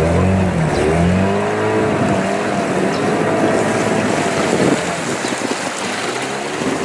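A motor engine revving up and down, its pitch rising and falling. About two-thirds of the way in it cuts back, leaving a steady rushing noise of water or wind.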